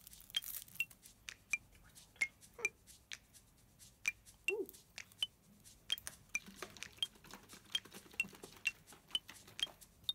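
A steady run of small sharp clicks, about two a second, each with a brief high ping.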